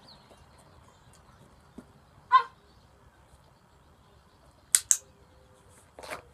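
Two sharp clicks a fraction of a second apart, from a dog-training clicker marking the dog's paw, followed near the end by a short rustle as a hand goes into a treat pouch. About two seconds in there is a single short, high-pitched squeak, as loud as the clicks.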